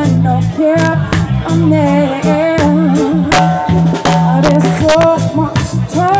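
Live reggae band playing: a woman's voice sings a melody over a heavy bass guitar line, drum hits and keyboard.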